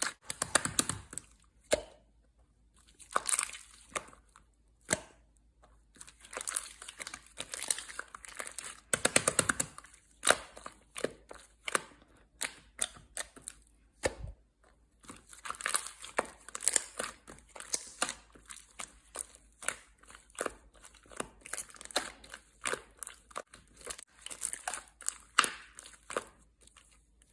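Slime being squished, stretched and poked by hand, giving irregular clusters of sticky crackles, clicks and pops, with short pauses between handfuls.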